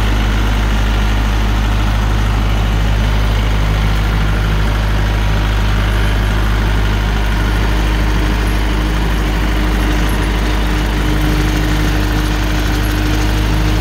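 Cab tractor's diesel engine running steadily while driving a rear-mounted rotary slasher through long grass. A steady higher hum joins the drone about halfway through.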